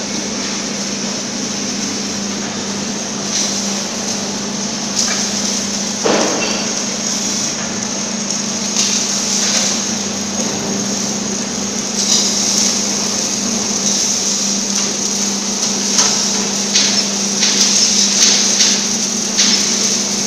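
Workshop ambience: a steady machine hum under a constant high hiss, with scattered short knocks and clicks that come thicker near the end.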